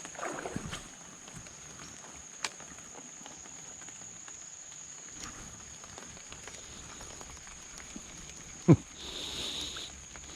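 Steady high-pitched insect drone, with one sharp knock near the end followed by a brief hiss.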